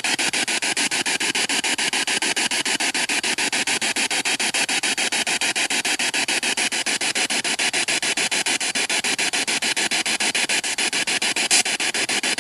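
Spirit box radio scanner sweeping through stations, played through a small Bluetooth speaker: a steady hiss of static chopped into even pulses several times a second.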